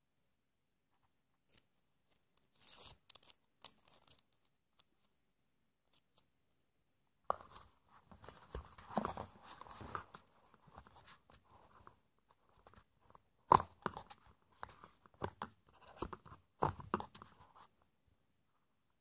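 Handling noise of cardboard packaging and small metal vape-tank parts: irregular rustling, crinkling and clicking in three spells, with a few sharp clicks, the loudest about two-thirds of the way in.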